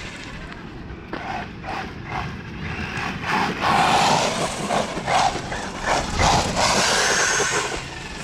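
Radio-controlled Maverick Quantum Flux monster truck on Traxxas Sledgehammer tyres being driven in short bursts, its noise swelling and dropping every second or so.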